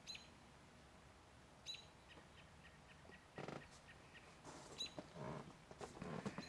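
Near silence, with a small bird's short high chirps, repeated several times and all alike, and a few soft scuffs.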